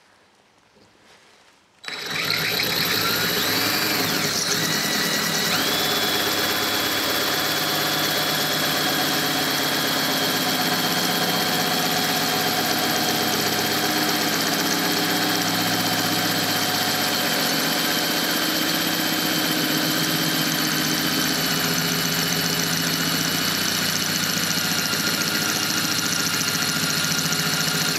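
Cordless drill running steadily as its bit grinds a hole through the base of a glass tumbler; it starts about two seconds in, gives a steady whine with a brief rising squeal soon after, and stops at the end.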